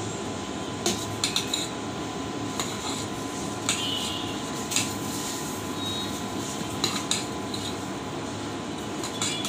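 A steel ladle stirring thick semolina batter in a steel pot, knocking and clinking against the pot's sides every second or so, over a steady hum.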